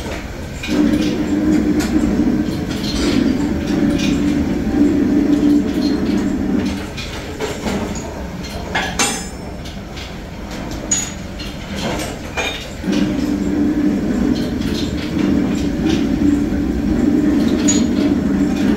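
A heavy workshop machine running with a low hum in two long stretches of about six seconds each, quieter in between. A single sharp metal clink comes about nine seconds in, as a steel piece is set down on the cast-iron lathe bed.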